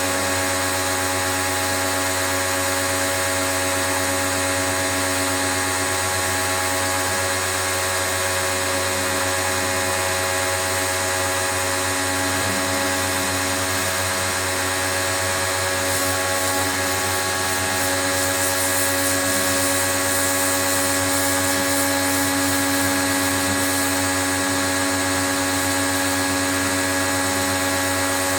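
Pro-Kleen 1600 pressure washer running steadily, its motor and pump giving a constant whine over the hiss of the water spray. The hiss grows brighter for several seconds past the middle.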